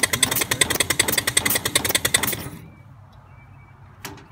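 Allen American 1/8-scale locomotive's two-cylinder engine running on compressed air: rapid, even exhaust beats of air with clatter from the rods and valve gear. The beats stop about two and a half seconds in as the valve gear is shifted out of forward gear, and a single sharp click near the end is the reverse lever being thrown into reverse.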